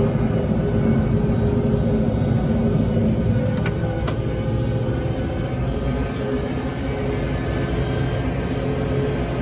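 Case Maxxum 125 tractor engine running steadily under load while pulling a five-furrow reversible plough through the soil, heard from the cab. The tone changes slightly a little over three seconds in, with a couple of sharp clicks just after.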